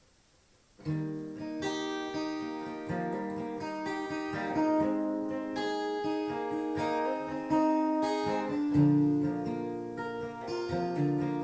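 Acoustic guitar strumming a song intro, coming in about a second in.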